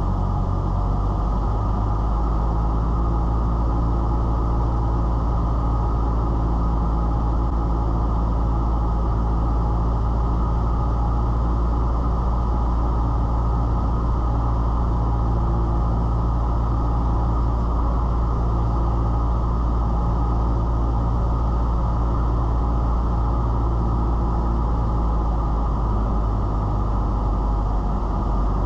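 Cessna 172's piston engine and propeller droning steadily in the cockpit on a night final approach, the sound muffled with little treble. The tone shifts slightly near the end as the aircraft crosses the runway threshold.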